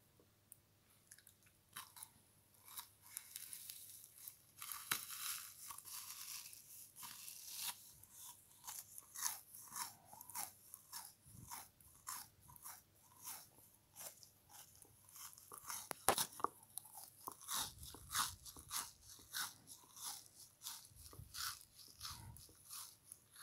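Biting and chewing frozen sponge cake strips close to the microphone: a dense run of crisp crunching a few seconds in, then separate crunches about two or three a second.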